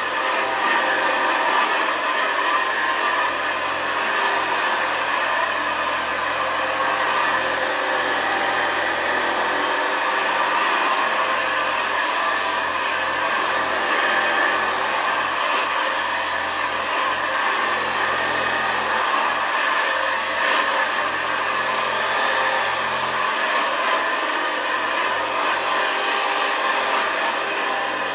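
1959 Hoover Senior 638 upright vacuum cleaner running steadily, a constant motor whine and rush of air with no change in speed.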